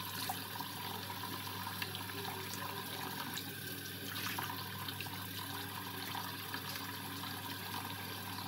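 Bathroom sink tap running steadily, with small splashes of water as a face mask is rinsed off.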